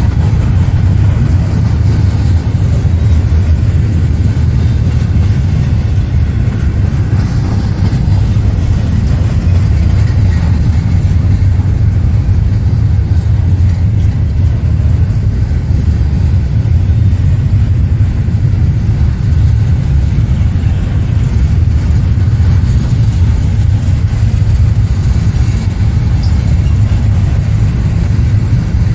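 Double-stack intermodal freight train's well cars rolling past close by: a steady, loud, low rumble of steel wheels on the rails.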